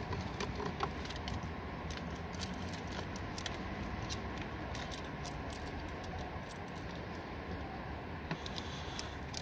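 Saw chain links clicking and clinking in many small, irregular ticks as the chain and guide bar are handled and fitted onto the saw's drive sprocket, over a steady rumble of wind on the microphone.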